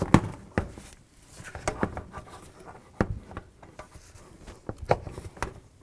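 Rubber and plastic air intake duct being worked onto the throttle body by hand: scattered knocks and clicks with soft rubbing between them.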